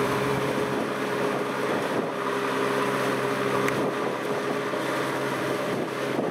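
Kubota M6040SU tractor's diesel engine running steadily at a constant pitch, with wet mud and water churning and sloshing around its disc puddler and tyres as it works stuck in deep mud.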